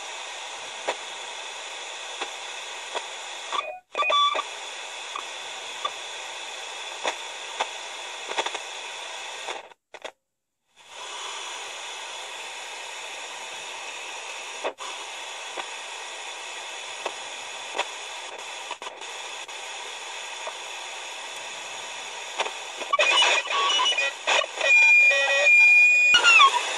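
Portable FM radio hissing with static and scattered crackles while a homemade FM transmitter's trimmer capacitor is turned. The hiss drops out briefly twice as the receiver catches the transmitter's carrier, and near the end wavering, squealing whistles come in as the transmitter comes into tune.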